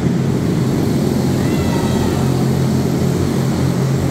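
A pack of quarter midget race cars with single-cylinder Briggs & Stratton Animal engines running flat out together, a steady engine drone. About one and a half seconds in, a brief high wavering whine rises and falls above the drone.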